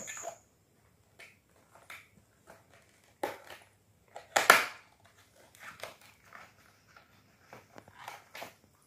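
A cardboard earphone box being opened by hand: scattered rustles and small clicks of the flap and the inner tray, with two louder crackles about three and four and a half seconds in.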